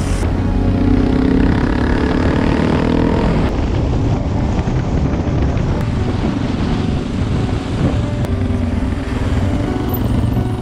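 Motorcycle being ridden along a road, its engine running under a dense, steady rush of noise.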